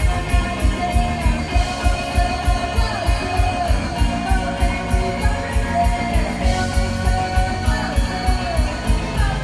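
A live rock band playing: a guitar line with bending notes over a steady, driving drum beat.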